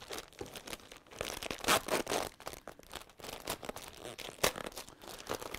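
A needlepoint kit's packaging bag crinkling and crackling as it is pulled open by hand, in irregular sharp crackles, the loudest about four and a half seconds in.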